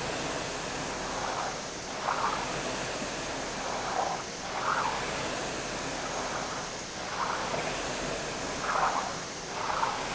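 Concept2 indoor rower's air-resistance flywheel whooshing steadily, swelling with each drive stroke roughly every two seconds.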